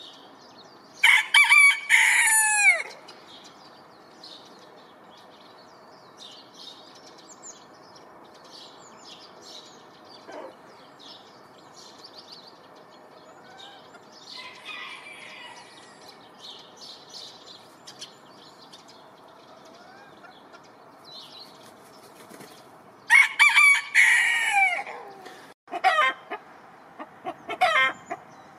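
Bavarian bantam rooster crowing twice, each crow about two seconds long and falling in pitch at the end, the second some twenty seconds after the first. A run of short sharp calls follows near the end, with faint small-bird chirps in the quiet between.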